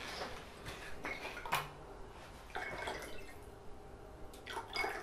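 Liquid poured from a bottle into a glass of ice cubes: a faint trickle with a few small clicks.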